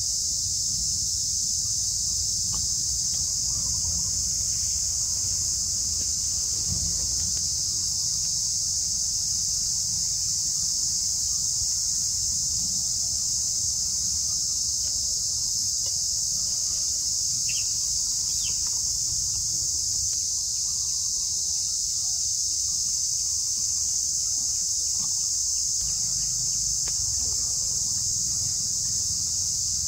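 Forest insects droning in a steady, unbroken high-pitched chorus, with a low rumble underneath. Two brief chirps stand out a little past halfway.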